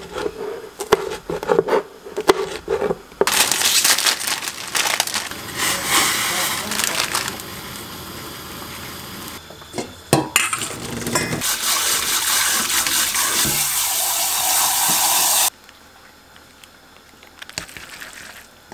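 Kitchen knife chopping red pepper on a plastic cutting board in sharp, quick knocks. Then cold tap water runs hard into a steel sieve of noodles in a metal sink for about twelve seconds and cuts off suddenly.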